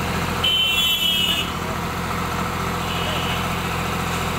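Swaraj 735 FE tractor's three-cylinder diesel engine running steadily while its hydraulics raise the tipping trailer to dump the load. A brief high-pitched whine sounds about half a second in, and fainter again about three seconds in.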